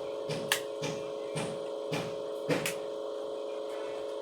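Mukbang eating noises: about six short mouth smacks over the first three seconds, over a steady electrical hum.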